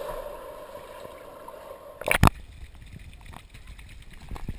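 Pool water heard from a submerged action camera, muffled and faintly humming, then a short burst of loud splashing about two seconds in as the camera comes up out of the water. After that come smaller splashes and drips.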